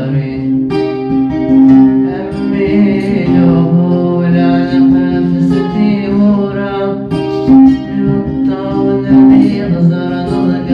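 Music: a plucked and strummed guitar with a singing voice.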